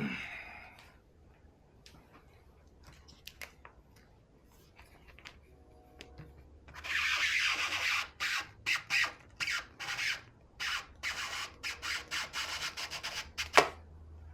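Squeegee rubbing a vinyl decal down. It starts about halfway in with one long stroke, goes on as a run of short quick strokes, and ends with a sharp tap.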